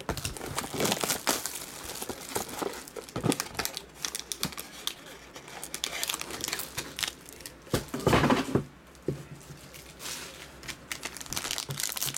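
Plastic shrink wrap and a foil trading-card pack crinkling and tearing as a sealed card box is unwrapped and the foil pack inside is ripped open. Irregular crackles run throughout, with a louder rustle about eight seconds in.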